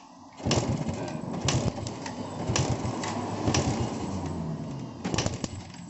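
Suzuki Shogun 125 engine being cranked over with its spark plug out, a dense mechanical clatter for about four and a half seconds with a sharp click about once a second. This is a spark test that shows spark is now reaching the plug once the broken coil wire has been bypassed.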